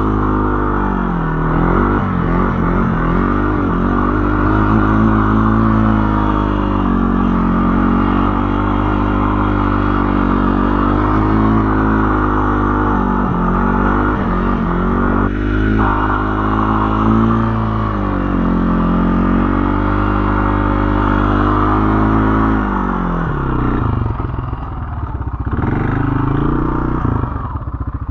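Vehicle engine running under changing throttle, its pitch dipping and climbing again several times, then falling to a low, evenly pulsing idle near the end.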